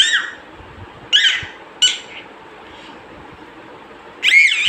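A toddler's high-pitched excited squeals: four short shrieks, the last one near the end the longest and loudest.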